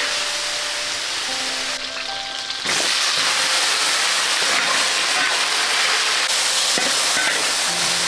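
Food stir-frying in a wok: a steady sizzling hiss that jumps louder about two and a half seconds in and stays loud, with faint background music.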